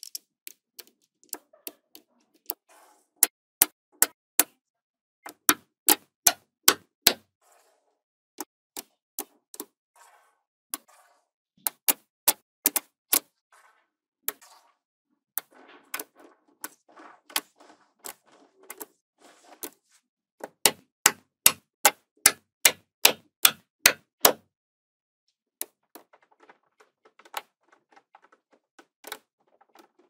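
Small magnetic balls snapping onto one another with sharp clicks as they are placed one by one, often in quick runs of several clicks a second, with softer rattling of balls being handled between runs.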